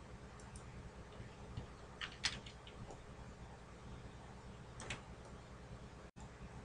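A few faint computer mouse clicks, about two seconds in, again shortly after, and near five seconds, over a steady low electrical hum and hiss.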